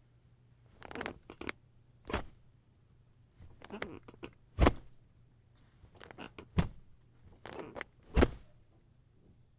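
Old bed mattress creaking and squeaking in irregular bouts as it is shifted, with sharp knocks roughly every two seconds, the loudest about halfway through and near the end.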